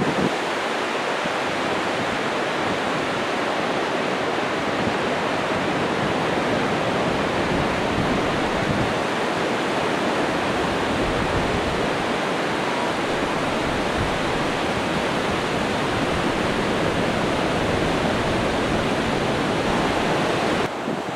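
Surf breaking on a sandy beach: a steady, even rush of sea noise.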